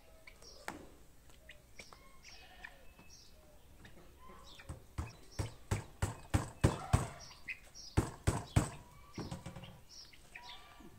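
A hammer tapping small nails into a wooden door, a quick run of sharp knocks about three a second lasting several seconds, with birds chirping.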